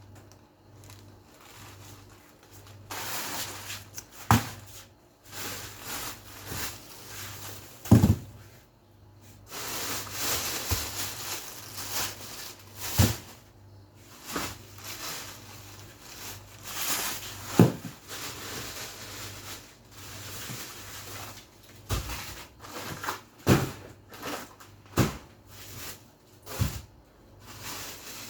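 Food containers and plastic-bagged packages being handled and set down while a refrigerator is emptied: irregular knocks and thumps, with stretches of plastic bags rustling.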